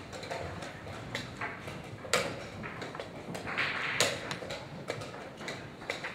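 Wooden chess pieces clicking and knocking on a wooden board during a fast blitz move, with the tap of a chess clock button. Two louder knocks come about two and four seconds in, among lighter clicks.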